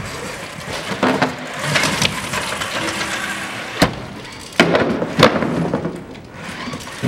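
FRC robot driving over plywood ramps and obstacles, its metal frame and wheels clattering and banging on the wood in a series of sharp knocks, the sharpest just before the middle.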